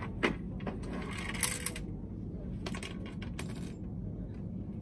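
Black plastic stackable desk trays clacking and rattling as they are pulled apart and handled: a couple of sharp knocks, then a few brief rattles, the loudest about one and a half seconds in.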